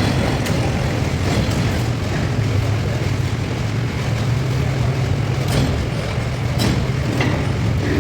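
Electric arc furnace arcing during a melt: a loud, steady, rough buzz over a strong low hum, broken by a few sharp cracks, most of them between about five and seven seconds in.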